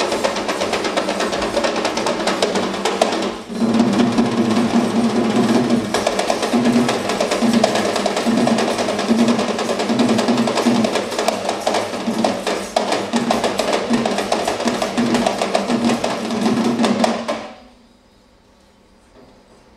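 Traditional Sri Lankan drums played fast in a dense run of strokes, with a brief break about three and a half seconds in. The drumming stops abruptly near the end, leaving only faint stage background.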